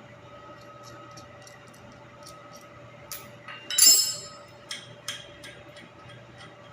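Metal clinking while a water heater's circulating pump is taken apart: a few light clicks and one louder, ringing clatter about four seconds in, over a steady mechanical hum.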